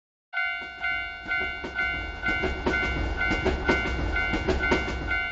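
Railroad crossing alarm bell ringing "kan-kan" about twice a second, over a passing train with its rumble and wheels clattering on the rails. Starts about a third of a second in.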